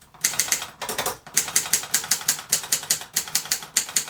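Moskva-4 portable typewriter's space bar pressed again and again, the carriage stepping with a sharp mechanical click at each press, about five or six clicks a second, with a brief pause a little past a second in.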